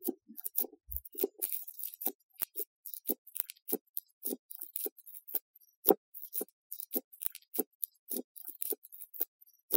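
Shampoo slime squeezed and kneaded by hand, giving quick irregular wet clicks and pops, a few each second.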